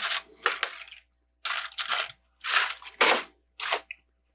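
Plastic Lego bricks clattering and rattling as a hand sifts through a pile of loose pieces, in about five short bursts.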